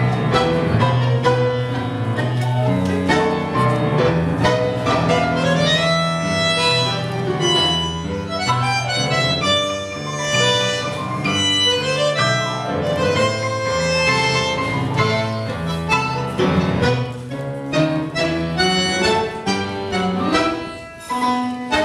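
Live tango music from a small duo: a melody of held and sliding notes over a steady bass line.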